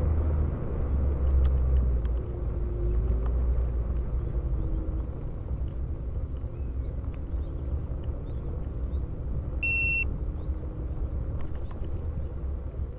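Low rumble of wind and tyre noise while riding along a trail, easing off gradually, with one short high electronic beep about ten seconds in.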